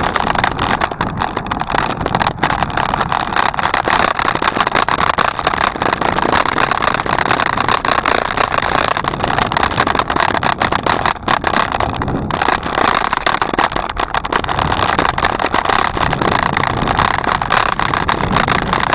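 Steady rushing noise of a bicycle ride picked up by the camera's microphone: wind and rolling-tyre noise, with no break.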